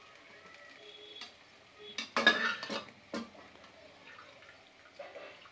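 Kitchen utensils knocking and scraping against a non-stick frying pan in a short clatter about two seconds in, with a smaller knock near the end.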